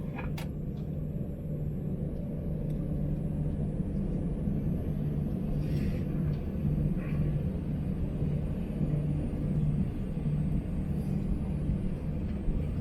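Steady low rumble and droning hum inside the passenger cabin of an Airbus A321, with one sharp click just after the start.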